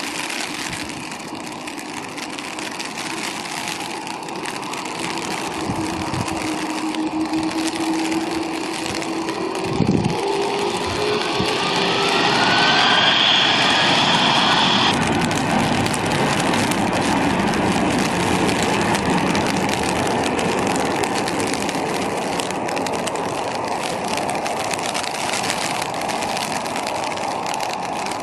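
Jet airliner engines running loud and steady, with tones that rise in pitch through the middle, and a high whine at the loudest point that cuts off suddenly about halfway through.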